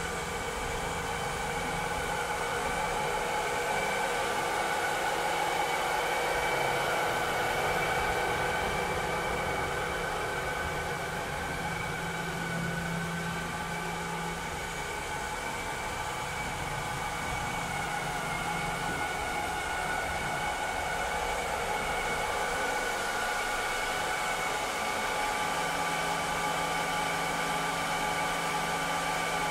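Vileda robotic vacuum cleaner running: a steady whirring motor with a high whine, its level swelling and dipping slightly.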